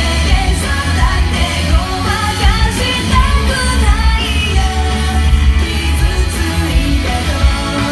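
Loud pop-rock song with a singing voice over a heavy, steady bass and drums.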